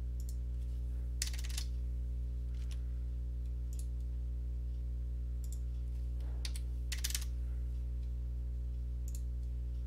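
A handful of scattered computer keyboard and mouse clicks, some in quick little clusters, over a steady low electrical hum.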